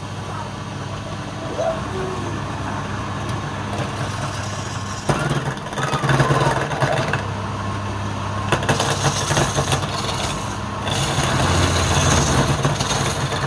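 Wood lathe's motor running with a steady hum while a hand chisel cuts the spinning wooden blank, a rough scraping hiss that grows louder about five seconds in and again near the end.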